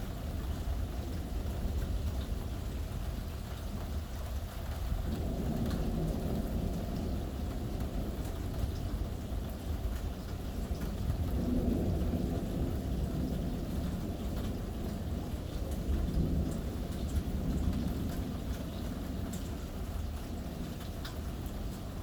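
Steady rain with drops ticking on a surface, and thunder rumbling low several times, swelling and fading.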